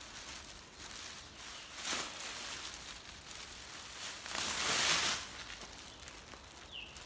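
Crinkling rustle of a thin SOL emergency blanket being unfolded and shaken out, swelling briefly about two seconds in and loudest at about four and a half to five seconds in.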